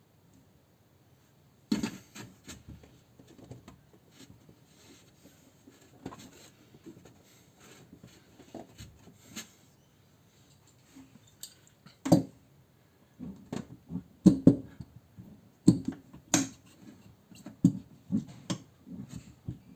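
Hands working on a car door and its trim: irregular knocks, taps and scrapes, sparse at first and coming thicker and louder from about twelve seconds in.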